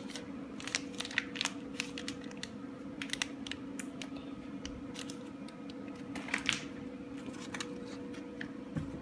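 Small plastic toy packets being handled and opened by hand: scattered light clicks and crinkles, with a brief rustle past the middle, over a steady low hum.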